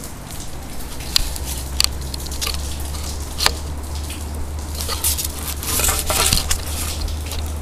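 Scattered sharp clicks and brief rustling from hands handling the RC crawler, likely as its body shell is fitted, over a steady low hum.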